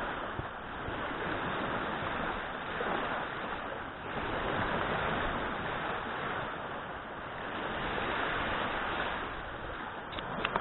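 Small waves breaking and washing up onto a sandy shore, the surf swelling and easing every few seconds.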